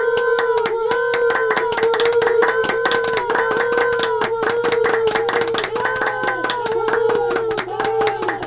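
Fast, dense handclapping mixed with repeated high, arching 'woo' cheers: one man's clapping and whooping layered over itself to sound like a cheering crowd.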